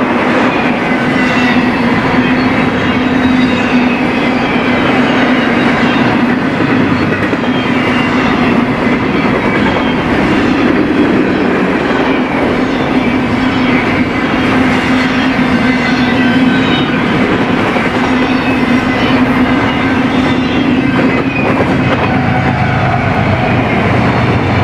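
Freight train cars rolling past close by: a steady loud rumble of steel wheels on rail with repeated wheel clicks. A deeper drone joins near the end.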